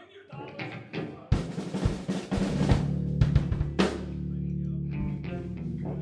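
A rock band's drum kit played in a loose run of snare and bass-drum hits with a cymbal crash, while low electric bass and guitar notes ring on through the amps.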